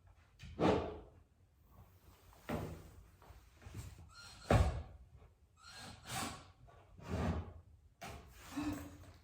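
A series of about six knocks and thuds as wooden parts are handled and fitted together during assembly, the loudest a little past halfway.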